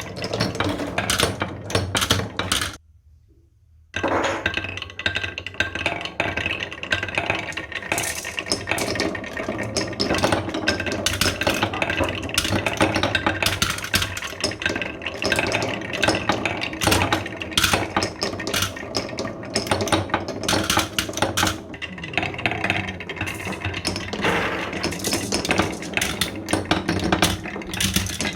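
Many marbles rolling and clattering down a marble run, a dense stream of small clicks and clacks, broken by a gap of about a second about three seconds in.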